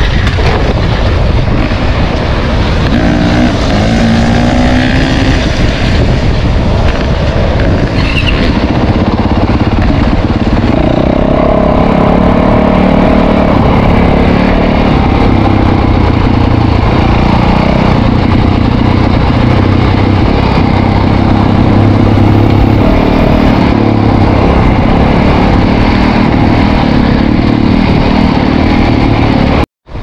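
Yamaha dirt bike engine running as the bike is ridden, heard loud from on the bike, its pitch rising and falling with the throttle. The sound drops out for a moment near the end.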